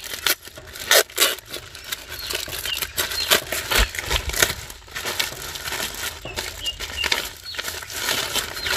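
Plastic courier mailer bag being torn open and crinkled by hand: irregular rustling and crackling with a few louder rips.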